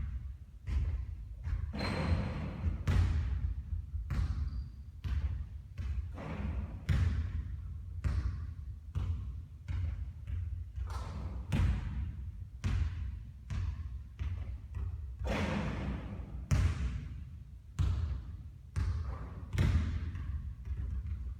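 Basketballs bouncing on a court during three-point shooting practice, sharp impacts at about one a second, over a steady low hum.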